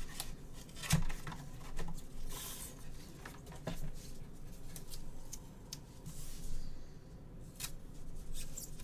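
Trading cards and their packaging being handled: scattered light clicks, scrapes and rustles, with a knock about a second in.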